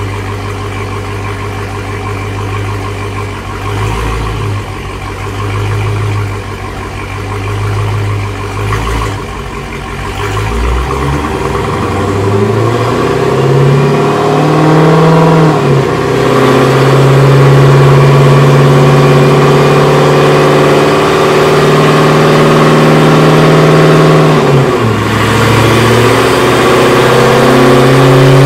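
2016 Dodge Challenger Hellcat's supercharged 6.2-litre Hemi V8 running on a chassis dyno during a test pull. It idles with a couple of brief throttle blips, then about a third of the way in it accelerates hard and gets much louder, rising in pitch, with a quick drop and recovery at a gear shift about halfway through and another near the end.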